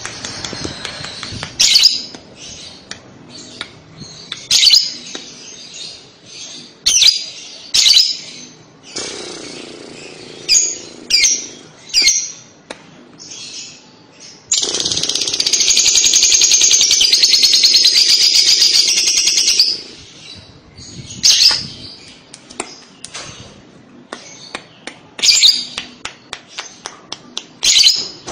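Lovebird calling with short, sharp, high chirps. About halfway through it gives one long, rapid chattering trill of about five seconds, the lovebird's 'kekek', then goes back to chirping.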